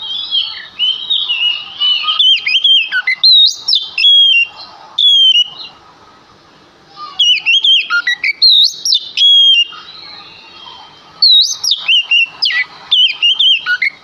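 Oriental magpie-robin (kacer) singing vigorously: loud phrases of clear, fast-sliding whistled notes, in three bursts with short pauses between them, after softer warbling at the start.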